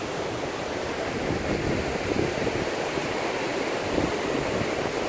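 Fast, glacier-fed mountain river rushing in white water over rocks: a steady, loud rush of water.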